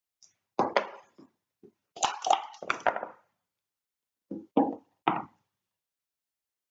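Backgammon dice rolled onto the board: a few clicks, then a clatter of dice tumbling for about a second, followed by three separate knocks.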